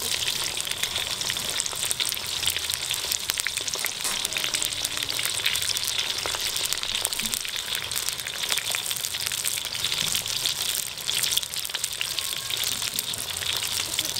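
Breaded cheese sticks deep-frying in hot oil in a wok: a steady, dense sizzle full of small crackles and pops.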